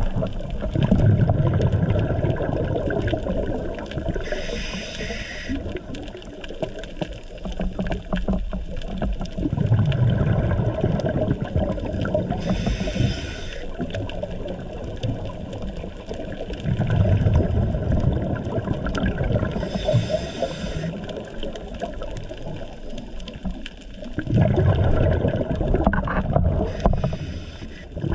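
A diver's scuba regulator heard underwater: four breaths about eight seconds apart, each a burst of bubbling exhaust followed a few seconds later by a short hiss of inhaling.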